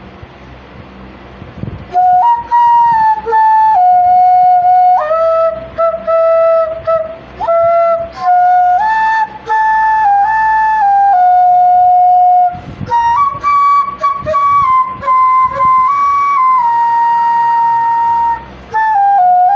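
Background music: a solo flute plays a slow melody of held, stepping notes, starting about two seconds in. Before it comes a couple of seconds of faint background hiss.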